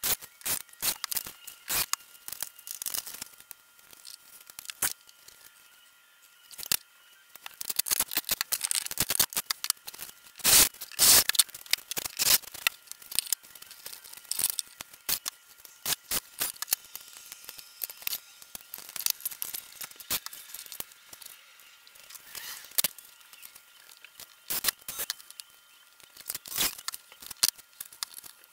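Workshop handling noises: an irregular run of clicks, rattles and scrapes as plastic controller boxes, screws and electrical cords are handled and fitted to a board, with a few louder clusters in the middle.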